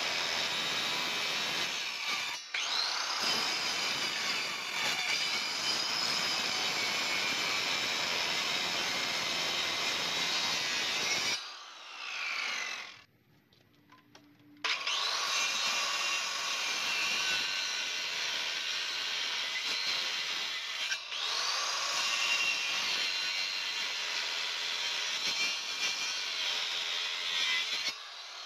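Electric jigsaw cutting through a wooden plank. The motor stops about 11 seconds in with a falling whine, and there is a short pause. It starts again with a rising whine about 15 seconds in and cuts on, with a brief break about two-thirds of the way through.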